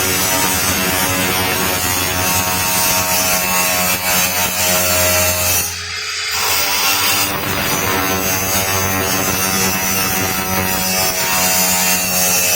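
Bosch electric power tool running steadily under load on the toolbox, with a steady motor hum. It stops for about half a second about six seconds in, then runs again.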